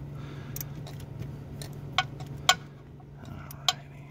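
Hand tools handled on a 10 mm bolt in a tight spot: a few scattered, sharp metallic clicks and taps from a ratchet and socket extension, over a steady low hum.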